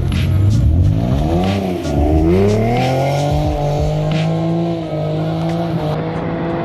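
Ford Mustang's engine pulling off a ferry ramp: it rises, dips and climbs again in the first few seconds, then holds a steady pitch.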